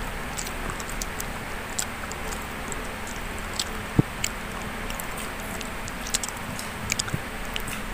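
A person eating grilled chicken and rice by hand, chewing with scattered small mouth clicks and smacks, one sharper click about halfway through, over a steady background hiss.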